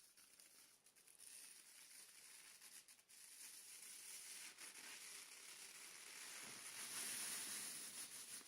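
Near silence: a faint hiss with a few soft clicks.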